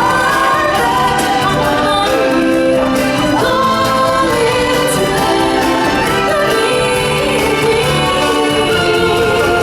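Live stage-show music: a choir of voices singing held, gliding notes over instrumental backing.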